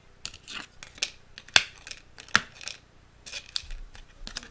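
Silicone pop-it fidget toy being pressed: an irregular string of sharp pops and clicks, the loudest about one and a half seconds in.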